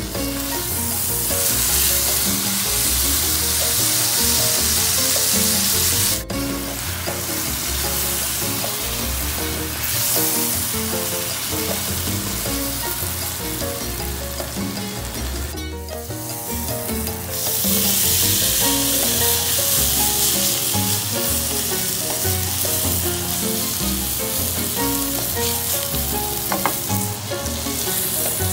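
Ribeye steak frying in oil in a grill pan, a loud steady sizzle that breaks off briefly twice, about six seconds in and again around sixteen seconds.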